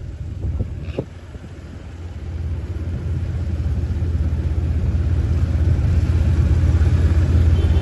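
Low rumble that grows steadily louder from about two seconds in, with a short knock about a second in.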